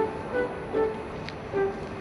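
Background music: a light melody of short, separate notes, a few to the second.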